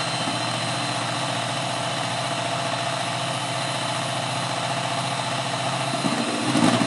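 Electric hand mixer running steadily, its twin beaters whipping egg whites and sugar syrup into a marshmallow meringue in a steel bowl.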